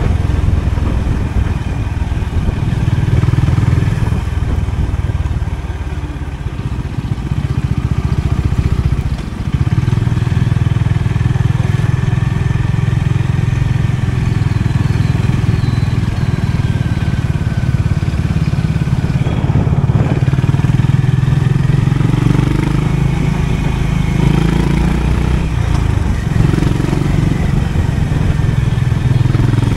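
Honda CB350 RS's single-cylinder engine running steadily while riding. It eases off for a few seconds and picks up again sharply about nine seconds in.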